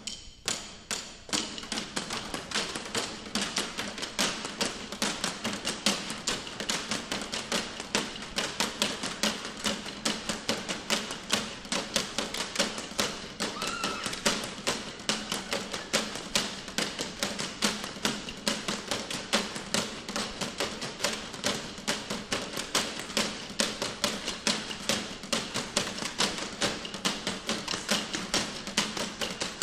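Live found-object percussion: sticks beating plastic buckets, tubs and cans in a fast, continuous rhythm of many sharp taps and thumps a second, picking up after a short pause at the start.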